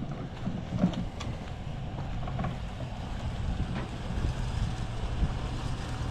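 A vehicle engine running with a steady low rumble, and a few faint knocks over it.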